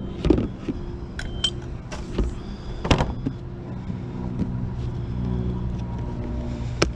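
A motor vehicle's engine running steadily as a low hum, with several sharp clicks and knocks from a plastic storage bin being handled, the loudest about three seconds in.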